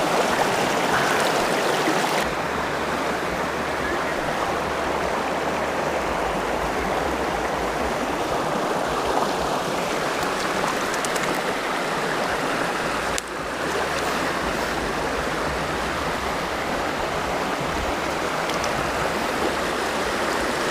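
Mountain stream water running steadily, an even rushing hiss.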